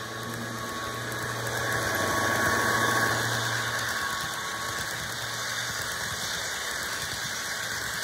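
HO-scale model passenger train running past close by: a steady hum with running noise that swells as the train draws level, loudest about two to three seconds in, then eases off.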